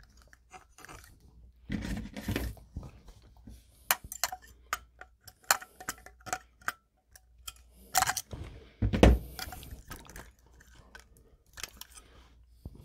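Scattered clicks, taps and light metallic clinks from handling a steel electrical box while a bare copper ground wire is bent and hooked around its ground screw, with a few louder knocks about two seconds in and around eight to nine seconds in.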